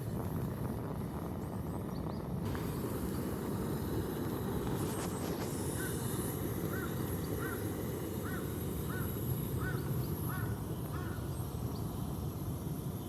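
A bird calling about nine times in an even series, one call every half second or so, over a steady low rumble.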